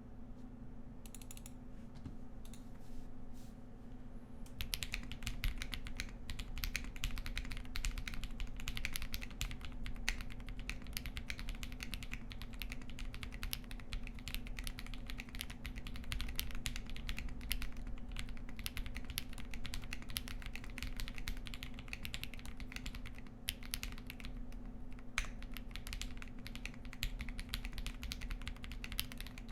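Ikki68 Aurora R2 mechanical keyboard with lubed Aurora Clear switches and transparent Keysterine keycaps being typed on: a few scattered keystrokes, then fast continuous typing from about four and a half seconds in.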